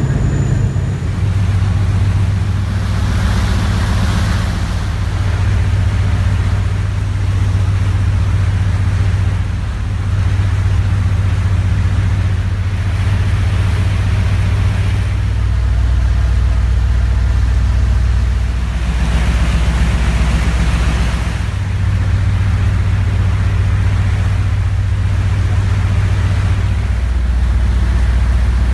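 Passenger ferry's engines droning steadily, with the low hum dropping to a lower pitch about halfway through. Twice a rushing hiss of water and wind swells over the drone.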